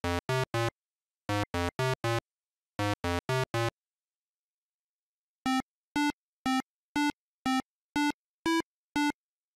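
Retro 8-bit synthesizer blips: three quick runs of four low notes, then after a short pause eight single higher-pitched blips about half a second apart.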